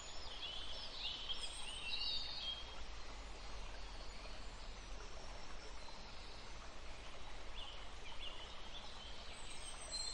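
Small birds chirping on and off over a steady background hiss: short high chirps, busiest in the first two seconds and again near the end.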